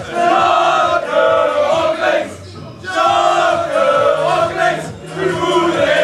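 A group of men singing a chant-like song together in unison, loudly, with a short break about two and a half seconds in before the singing picks up again.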